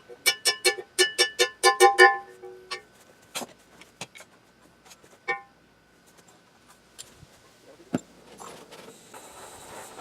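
Hammer blows ringing on steel, about five a second for the first two seconds, straightening a bent pole. A few separate knocks and clinks follow, and a high hiss comes near the end.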